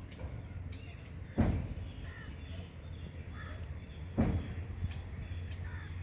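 Two dull thumps about three seconds apart over a steady low hum, with faint short calls between them.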